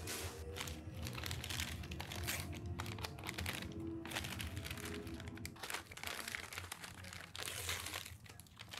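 Plastic and brown paper takeout bags crinkling and rustling as they are handled and opened, over background music.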